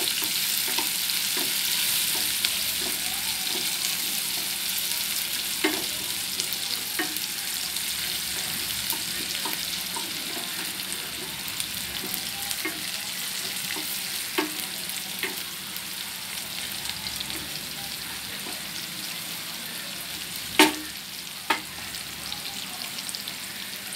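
Sliced onions sizzling in hot oil in a pan while a wooden spoon stirs them. The sizzle slowly fades, with small clicks throughout and two sharper knocks near the end.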